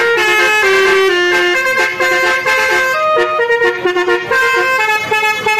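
A telolet basuri multi-tone bus horn playing a melody: a loud run of held horn notes that step from pitch to pitch several times a second.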